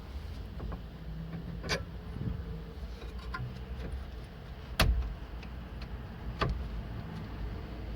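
Sharp metal clicks and knocks as new brake pads are pushed into the caliper carrier and its clips, the loudest knock about five seconds in, with lighter ticks in between.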